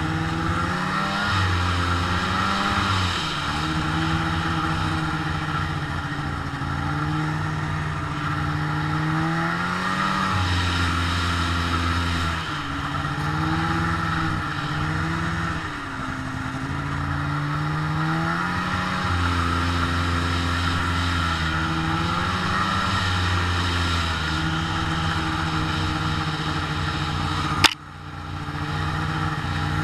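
Snowmobile engine running under way, its pitch rising and falling every few seconds as the throttle is opened and eased off. Near the end there is one sharp click, and the sound drops out for a moment before the engine comes back.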